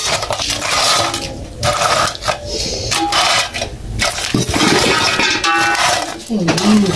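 Metal cooking pot and utensils clattering and scraping in quick, irregular strokes, with a voice starting near the end.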